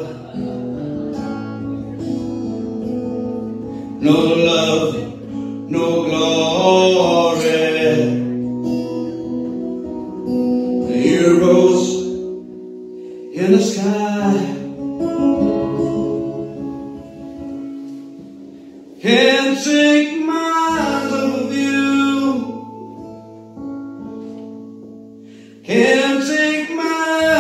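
A man singing slow sung phrases to his own acoustic guitar accompaniment, the guitar's chords ringing on through the gaps between lines.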